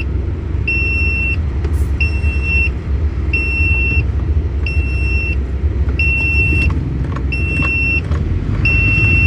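Truck dashboard warning beeping in a high single pitch, each beep just under a second long and repeating about once a second, because the driver's seatbelt is not fastened. Under the beeps is the steady low rumble of the truck driving, heard inside the cab.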